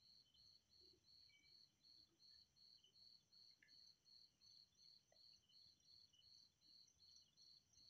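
Near silence, with faint high-pitched insect chirping pulsing steadily about three times a second.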